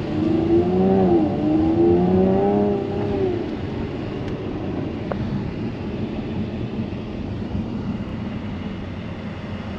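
2017 Jaguar F-type's supercharged engine accelerating, its pitch climbing, dropping briefly about a second in and climbing again, then easing off after about three seconds into steady road and tyre noise as the car cruises.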